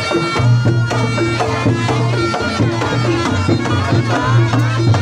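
Reog Ponorogo ensemble playing: a slompret shawm wails a wavering melody over quick, steady kendang drum strokes and repeating gong-chime notes.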